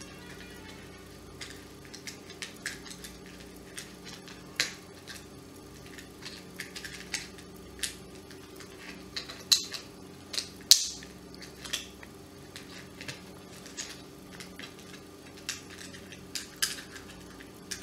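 Hand blender's plastic housing and new switch being handled and pressed into place: irregular small clicks and taps of plastic, the two loudest around the middle, over a faint steady hum.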